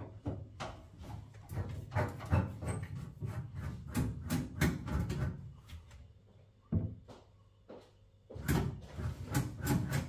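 Irregular knocks, clicks and rubbing as hands work at the boiler casing and the wooden kitchen cupboard door around it, with a couple of quiet gaps a little past halfway.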